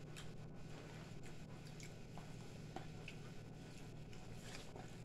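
Faint eating sounds: chewing, with scattered small clicks and rustles of hands picking at food in paperboard takeout boxes, over a low steady hum.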